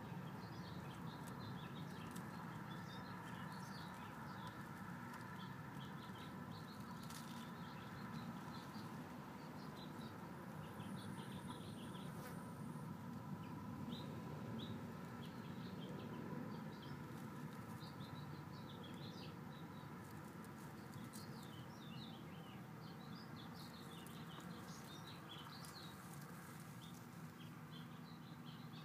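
Quiet outdoor ambience: many short, high chirps of small birds scattered throughout, over a steady low hum.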